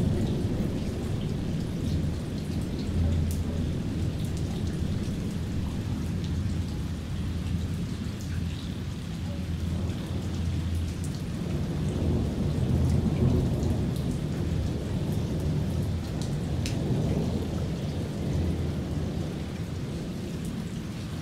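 Thunderstorm: steady rain with low, rolling thunder rumbling underneath, swelling about three seconds in and again around twelve seconds in.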